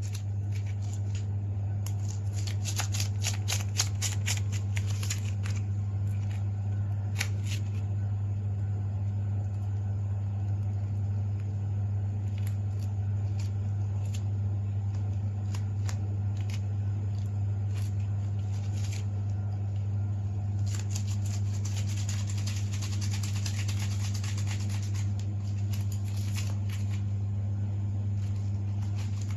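Gloved hands and a screwdriver working cable cores into a plastic terminal block connector, giving bursts of rapid scratchy clicks, about two seconds in and again about twenty seconds in. Under them runs a steady low hum.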